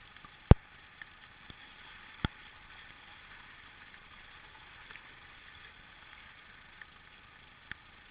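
Steady rush of river water in whitewater, with a few sharp knocks: the loudest about half a second in, another a little after two seconds, and fainter ones scattered through.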